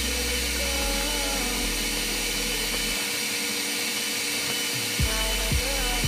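Background music, a song with a moving melody and changing bass notes, over a steady mechanical whine and hiss. From about five seconds in, a regular beat comes in about twice a second.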